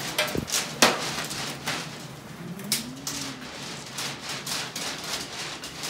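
Hard candy pieces clicking and tapping against a work table as they are handled: a handful of sharp clicks, the loudest a little under a second in, over a low room hum.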